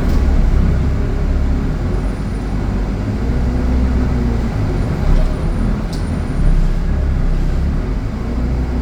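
Motor vehicle running on the road: a steady low rumble of engine and road noise, with the engine pitch shifting slightly and a brief click about six seconds in.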